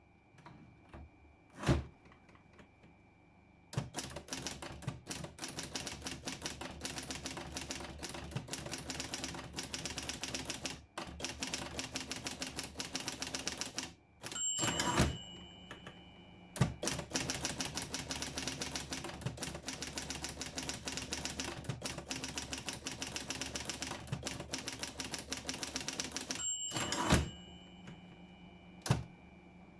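Underwood Documentor electric typewriter typing in long runs of rapid keystrokes, with a faint steady hum from its motor in the pauses. Twice a louder clunk breaks the runs, about halfway through and near the end.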